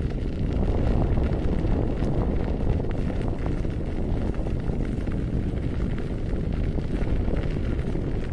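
Wind buffeting the microphone, a steady low rumble, with faint scattered ticks over it.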